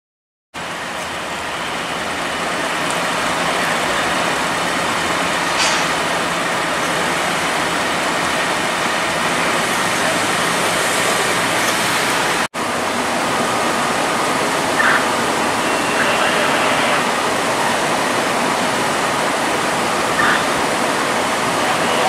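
Steady rushing noise, with a brief dropout about halfway through.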